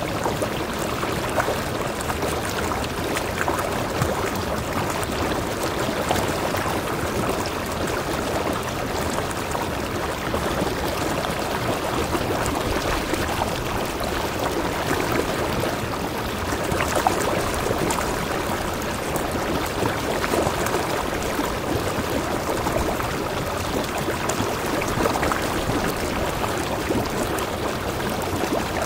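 Mountain stream cascading between boulders into a rock pool: a steady rush and splash of water.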